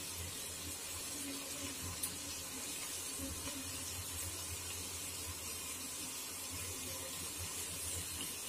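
Sliced onions frying gently in oil on a low flame: a steady, faint sizzle and hiss, with one light click about two seconds in.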